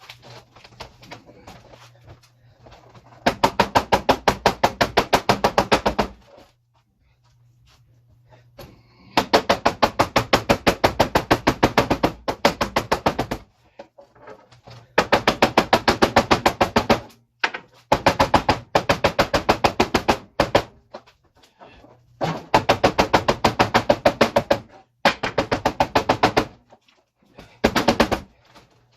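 Power tool hammering in bursts of one to four seconds, each burst a fast, even train of sharp impacts, stopping and starting as the trigger is worked.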